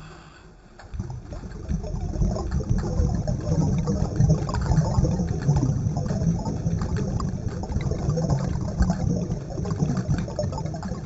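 Water noise heard underwater: a low rumble with scattered crackles, starting about a second in.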